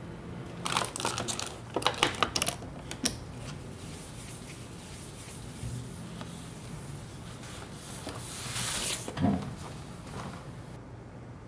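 Paper tissue crinkling and rustling as it is handled, with a quick flurry of small clicks and taps about one to three seconds in. Near the end, a longer rubbing swish of the tissue wiped across the wooden tabletop, followed by a soft thump.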